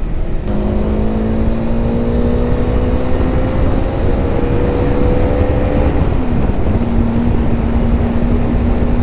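Motorcycle engine running steadily at road speed under rumbling wind and road noise. Its note rises slowly, dips briefly about six seconds in, then holds steady.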